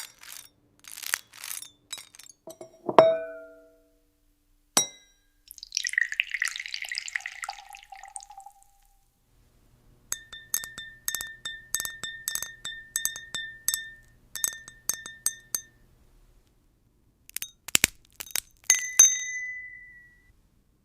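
Glass tapping and clinking: scattered sharp clinks, a ringing chime about three seconds in, and a brief tinkling rattle. Then comes a quick run of light taps, each ringing at the same pitch, and a last ringing clink near the end.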